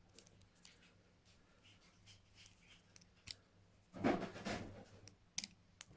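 Faint metallic clicks from a Parker pen pick being twisted in the keyway of TCH 840 rigid handcuffs to work the triple-pull lock, with a louder rattle of the cuff about four seconds in and two sharp clicks near the end.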